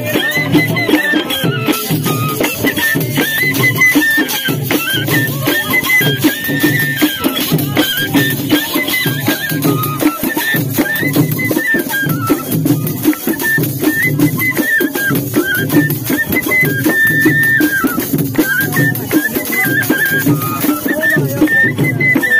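Traditional Pahari folk dance music: drums beating a steady, repeating rhythm under a high melody line that holds notes and steps up and down.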